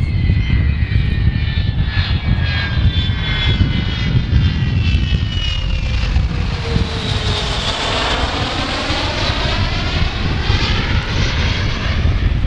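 Avro Vulcan B2 bomber's four Rolls-Royce Olympus jet engines, loud, as it makes a low pass overhead. A high whine falls in pitch over the first six seconds or so as it goes by, then the sound shifts and sweeps as it flies away.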